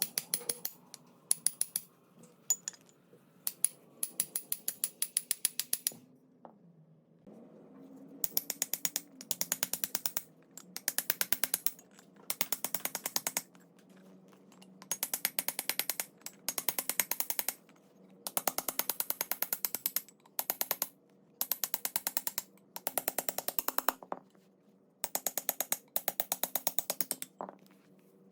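Rapid, evenly spaced mechanical clicking in many runs of one to two seconds each, with short pauses between the runs and a longer pause of about two seconds a quarter of the way in.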